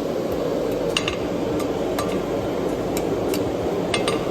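Steady low roar of a blacksmith's forge, with a few scattered sharp metallic clinks of tools on steel.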